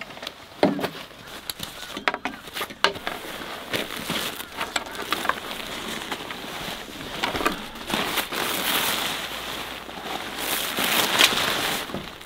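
Plastic wrapping and tent fabric rustling and crinkling as a folded tent is unstrapped and unrolled, with scattered clicks and knocks of straps and handling. The crinkling grows denser in the second half and is loudest near the end.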